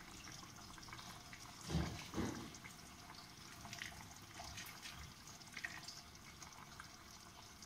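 Thick crab curry simmering in an open pan, bubbling and popping faintly, with two soft knocks close together about two seconds in.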